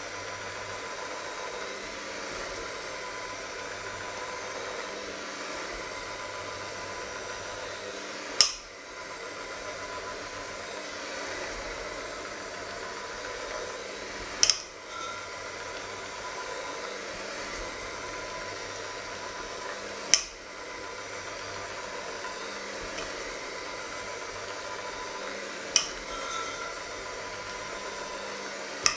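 Electric hand mixer running steadily, its beaters whirring through a thick batter in a stainless steel bowl. A sharp knock cuts in about every six seconds.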